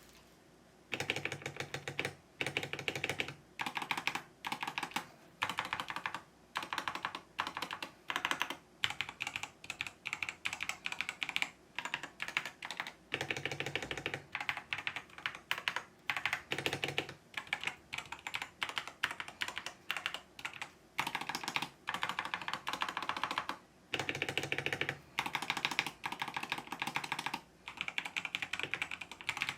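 Typing on a LANGTU LT84 sandwich-mount mechanical keyboard: rapid runs of keystrokes broken by short pauses.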